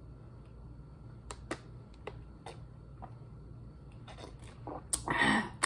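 Drinking water from a plastic bottle: faint swallowing clicks over a steady low room hum, then a short, louder noisy burst near the end.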